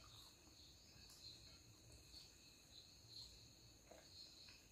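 Near silence: a faint, steady high-pitched chirring in the background, with a few soft clicks from eating by hand.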